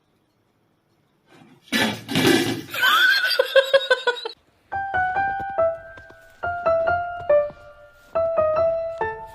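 Background music: after a second or so of silence and a short noisy burst, a simple melody of single piano-like notes begins about halfway through.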